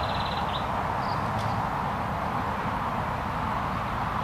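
Steady outdoor background noise, a rushing hiss with an uneven low rumble like wind on the microphone, with a short high bird trill in the first half-second.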